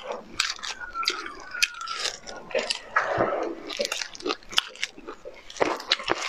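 Close-up eating sounds of a person biting and chewing stewed meat off the bone, with many short, sharp, wet clicks and crunches.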